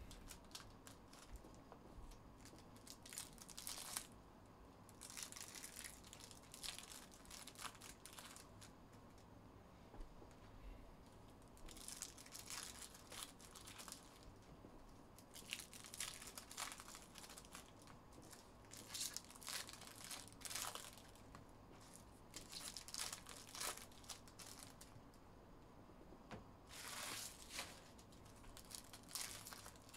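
Foil trading-card pack wrappers crinkling and tearing as packs are opened by hand. The sound is faint and comes in short irregular bursts.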